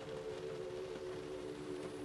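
Rain falling on a car, an even patter of drops, with a steady hum of several low tones underneath.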